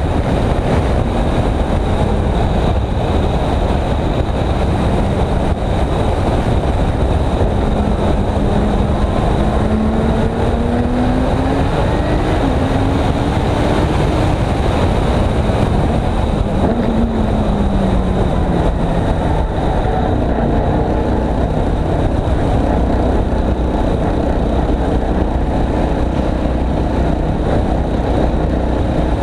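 Audi R8 LMS race car's V10 engine running at low speed, its note rising gently until about halfway and then falling away, under a steady loud rush of wind and road noise at a car-mounted camera.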